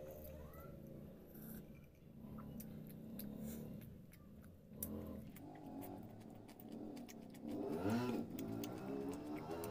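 Close-up mukbang eating sounds: chewing and lip-smacking clicks while eating rice by hand, with a short wavering pitched sound just before eight seconds in.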